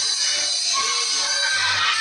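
Music with a steady beat, about two beats a second.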